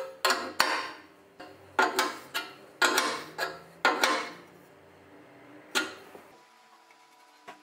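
Metal being struck or knocked against metal: about a dozen sharp clanks, each with a short ring, coming irregularly and stopping after about four seconds, with one more clank near six seconds.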